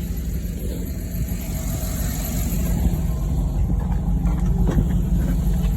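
A vehicle engine idling steadily, with a couple of short knocks or clicks about four to five seconds in.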